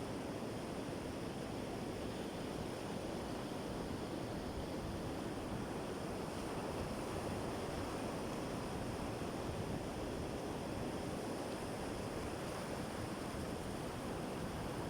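Sea surf washing onto a beach: a steady, unbroken rush of waves.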